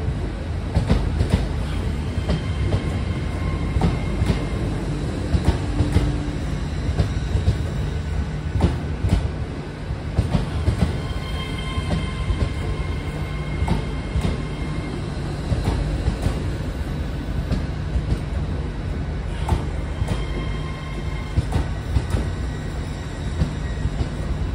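LNER Azuma passenger train rolling slowly past along the platform: a steady low rumble from its bogies, with wheels clicking over rail joints and a few brief faint high-pitched squeals.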